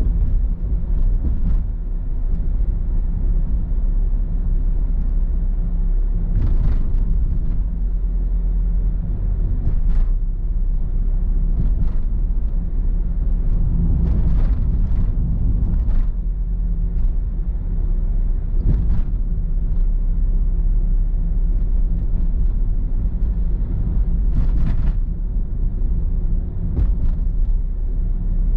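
Steady low road and engine rumble of a moving car, picked up inside the cabin by a dashcam microphone. Short knocks come at irregular moments, a few of them close together.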